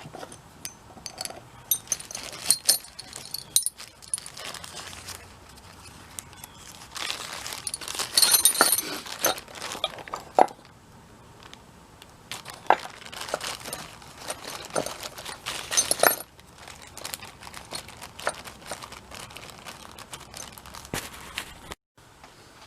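Small metal drill bits and hand tools being handled: scattered clinks and clicks with rustling, the busiest stretch about eight to ten seconds in.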